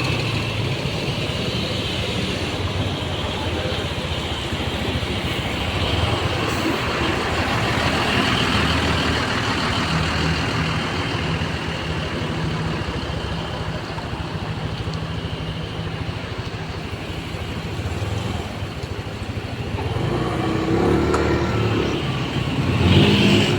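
Large bus engine running steadily amid road traffic noise, growing a little louder near the end.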